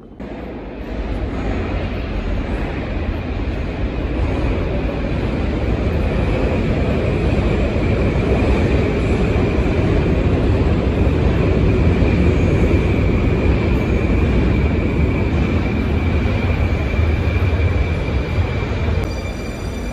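Moscow Metro train running through the station: a loud, steady rumble with a faint high whine, building over the first few seconds and easing near the end.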